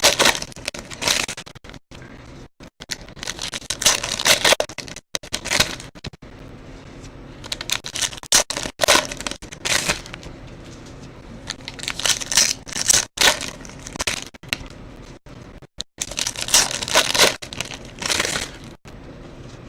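Foil trading-card pack wrappers being torn open and crinkled, in about five short bursts a few seconds apart.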